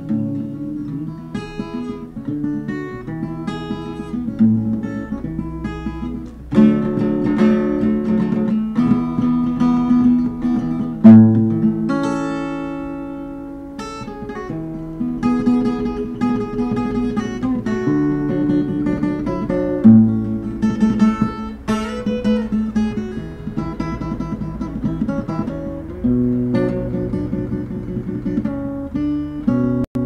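Acoustic guitar played alone, strummed chords mixed with picked notes, with a few sharp accented strokes standing out.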